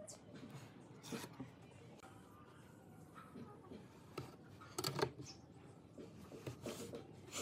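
Faint handling sounds of marking out a wooden board: a metal speed square set down and shifted on the wood, and a ballpoint pen scratching a line along its edge, with a few light knocks, the loudest about five seconds in.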